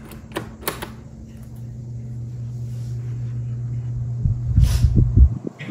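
12-inch desk fan from 1993 switched on at its low setting: two clicks of the switch about half a second in, then the motor's low hum getting louder as the blades spin up. There is a loud low rumble near the end.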